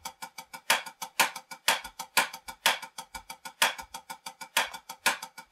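Drumsticks playing a triplet accent pattern on a drum practice pad, about six strokes a second. Each loud accent is followed by softer taps, the accents falling about every half second.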